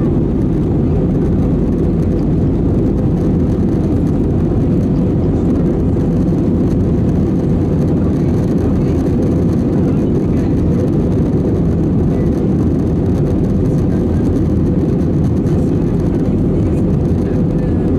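Steady cabin noise of an Airbus A320-214 in flight, heard from a window seat over the wing: a constant rush of airflow and the drone of its CFM56 jet engines, with an even low hum underneath.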